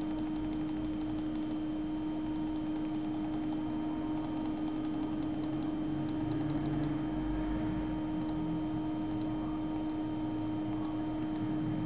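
Steady background hum with a constant low tone, and faint quick ticking now and then.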